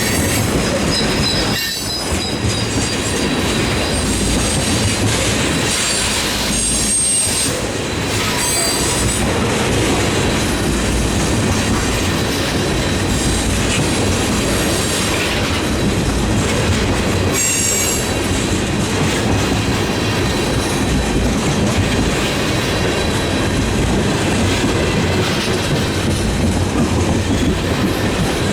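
Freight train rolling by: a steady rumble of the cars, with wheels clicking over rail joints and a few brief high-pitched wheel squeals.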